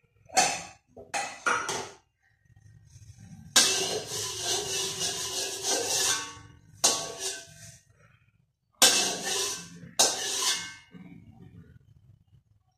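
Metal spatula scraping and stirring in a steel wok: four long scraping stretches that each start suddenly and trail off, with a few short clinks in the first two seconds.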